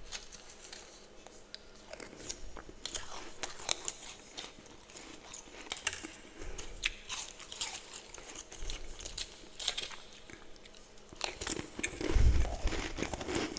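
Close-up chewing and crunching of soft freezer frost ('humidifier frost'), a dense run of crisp, irregular crackles as it is bitten and chewed, with a louder stretch near the end.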